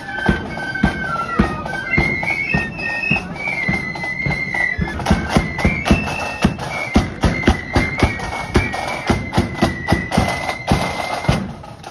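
A marching flute band playing a tune: high flutes carry the melody over a steady drum beat, then settle on one long held note in the second half.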